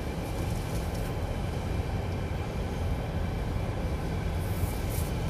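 Steady low rumble inside the cabin of a Rolls-Royce Ghost creeping forward at low speed.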